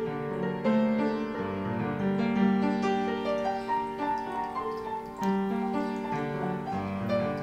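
Instrumental intro music: a keyboard melody over slow held chords that change every second or two.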